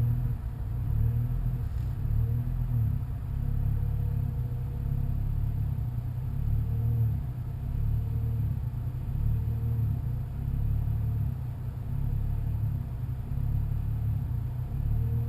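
BMW N55 turbocharged inline-six idling roughly, its note swelling and sagging every couple of seconds. This is an unsteady, hunting idle on an engine that has been stalling.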